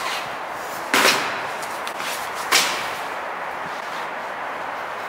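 Flattened cardboard boxes being dropped into a collapsible fabric wagon, making two sharp slaps about a second and a half apart, over a steady hiss in a concrete parking garage.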